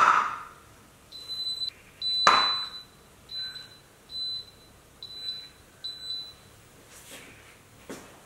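Koowheel hovershoes giving a string of about six short, high electronic beeps over five seconds as they are switched on, with two thuds of the units on the tile floor, one at the start and one a couple of seconds in.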